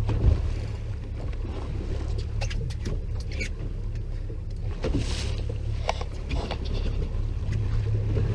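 Boat engine idling, a low steady hum, with scattered light clicks and knocks over it.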